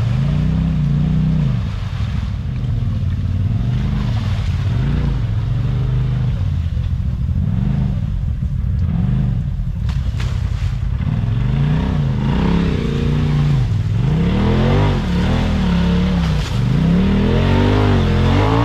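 Polaris RZR side-by-side engine revving hard in repeated rises and falls as it claws through deep mud, the revs climbing higher near the end.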